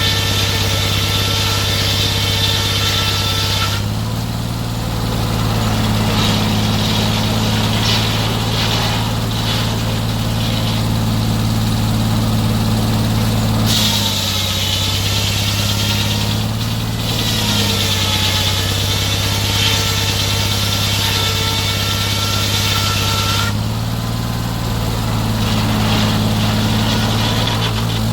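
Portable sawmill's engine running steadily, with a higher hissing sound over it that eases about four seconds in, returns around the middle and eases again near the end, as the load on the mill changes.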